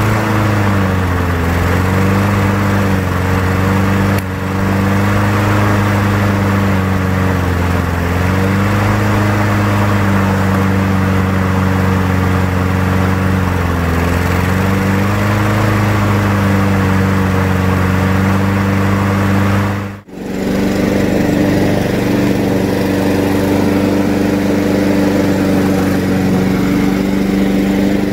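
Honda GCV160 lawnmower engine running at a steady speed, its pitch sagging briefly and recovering every few seconds. After a short break about two-thirds of the way through it runs evenly, starting to sound better.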